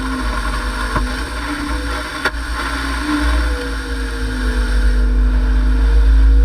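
An engine running steadily with a heavy low rumble, its pitch drifting slightly up and down; two short clicks about a second and two seconds in.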